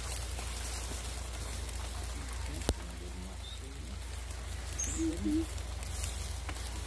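Footsteps in sandals on dry leaf litter, a patter-like rustle, over a steady low rumble, with one sharp click near the middle and faint voices about five seconds in.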